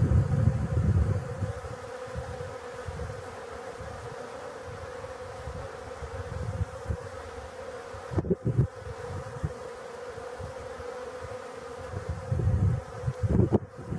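A swarm of honeybees buzzing steadily as they fly around and crowd a water dish: an even hum. Wind rumbles on the microphone at the start and in gusts near the end.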